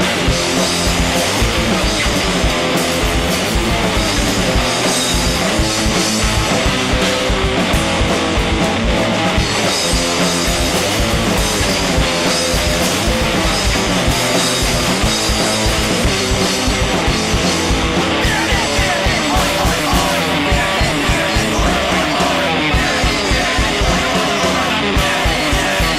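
Punk rock band playing an instrumental passage: distorted electric guitar, bass and drums at a fast steady beat.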